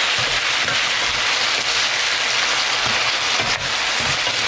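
Soy-braised chicken and vegetables sizzling in a frying pan: a steady, loud hiss.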